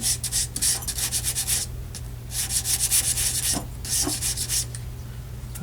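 Abrasive rubbing on a small metal bezel strip: quick back-and-forth scratchy strokes in three bursts with short pauses between.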